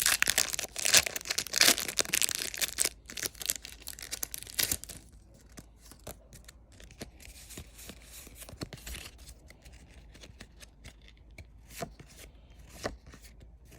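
Foil Pokémon booster pack wrapper torn open: loud crinkly tearing for about the first five seconds. Then faint rustling with a few light taps as the cards inside are handled.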